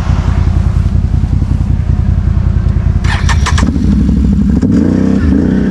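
ATV engine running with a loud, steady low rumble, a brief run of sharp clicks about three seconds in, then the engine note rising in the last two seconds as the machine moves off.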